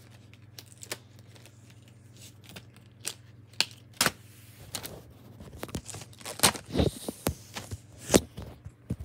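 Rustling, clicking and knocking of handling close to the microphone, sparse at first, then denser and louder from about four seconds in, with a few sharp knocks as the recording device is picked up.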